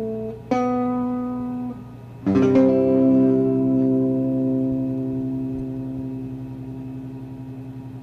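Instrumental background music: a note starts about half a second in, then a fuller chord comes in about two seconds in and rings on, slowly fading.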